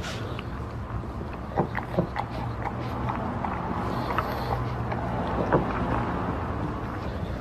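Pug feeding from a small ceramic bowl: scattered short clicks and smacks of its mouth and tongue against the bowl, the loudest about a second and a half in and again near the end. Under them runs a steady low rumble.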